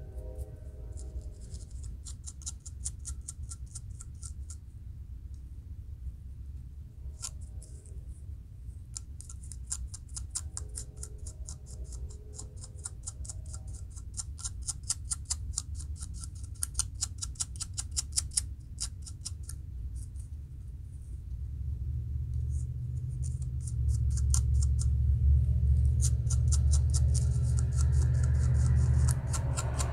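Fine-tooth metal comb scratching over a dry, flaking scalp in rapid short strokes, lifting dandruff between locs. A low rumble swells in the second half and is loudest near the end.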